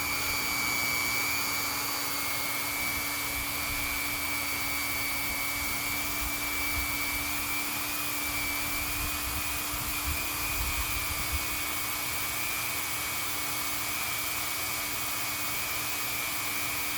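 Hot-air vinyl welding machine running steadily while it comes up to its welding heat: an even blower rush with a steady low hum and a high whine.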